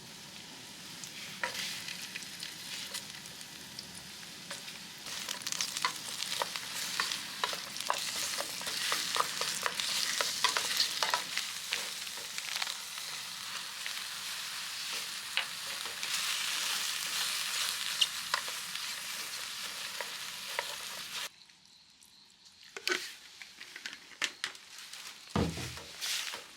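Food sizzling and frying in a pan, with many sharp clicks of stirring against it. The sizzle cuts off abruptly about 21 seconds in, leaving a few quieter knocks.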